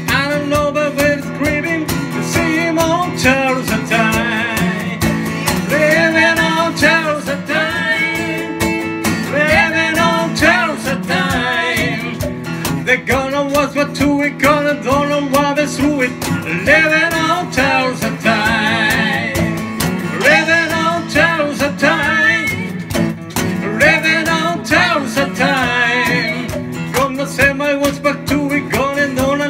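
Live acoustic song: a man singing lead over a strummed acoustic guitar, with a cajon tapping out the beat.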